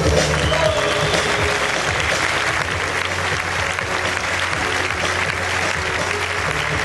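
Audience applause and cheering that swells about a second in, over loud backing music with a bass line.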